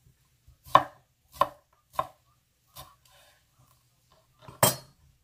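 Kitchen knife slicing bell peppers into strips, the blade knocking on the cutting board four times about 0.6 s apart, followed by a louder single knock near the end.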